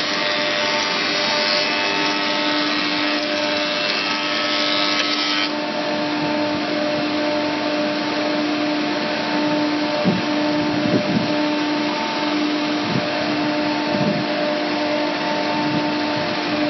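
Four-sided thickness moulder running, its cutter-head spindle motors giving a steady machine drone with a held whine. About five seconds in, the hissing upper part of the noise drops away while the motors keep running.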